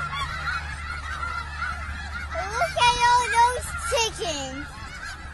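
A large flock of white geese honking together in a constant chatter of overlapping calls, with a few louder, drawn-out calls about halfway through.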